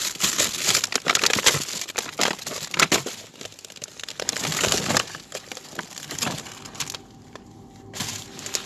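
Plastic food packaging and tubs crinkling, rustling and clattering as they are rummaged through and shifted by hand. It is busiest over the first five seconds and quietens over the last two.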